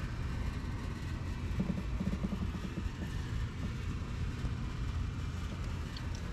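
Harley-Davidson Road Glide's air-cooled V-twin engine idling with a steady low rumble.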